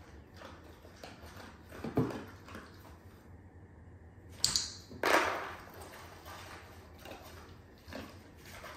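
A dog nosing and rooting through a cardboard box, the cardboard and the paper packing inside rustling, crinkling and bumping in scattered bursts, the loudest about halfway through.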